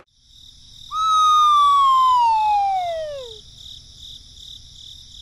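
A single whistle-like tone gliding steadily down in pitch for about two and a half seconds, starting about a second in, over a faint steady high chirring.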